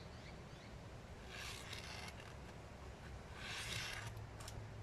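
Felt-tip marker drawn along a straight edge over masking tape on a plastic bottle: two short scratchy strokes, about two seconds apart.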